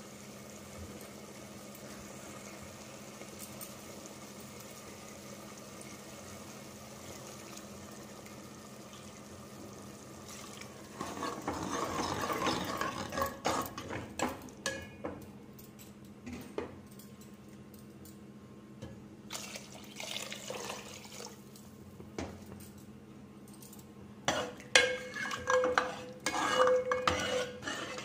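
Steel ladle stirring thick chickpea curry in a steel pot: wet slopping and scraping with metal clinks against the pot. It starts about eleven seconds in and comes in bursts, loudest near the end, where the clinks ring. Before it there is a steady low hum.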